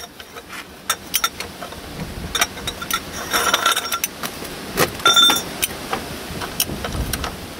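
Ratchet and 19mm socket on a car's oil sump drain plug: irregular metal clicks and knocks as the plug is worked loose, with brief ringing metal clinks about three and a half and five seconds in.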